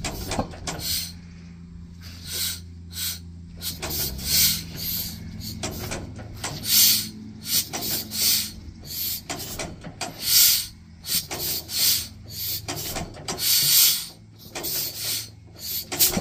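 The two-cylinder engine of a 1940 John Deere B being turned over by hand at the flywheel to start it. With the compression petcocks open, it gives a string of short hissing puffs, unevenly spaced at about two a second.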